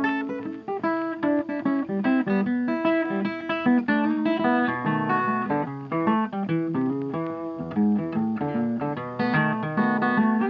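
Background music: a guitar picking a quick run of plucked notes.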